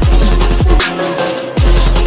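Electronic backing music with a heavy bass line and sharp drum hits. The bass drops out for about half a second near the middle, then comes back with a hit.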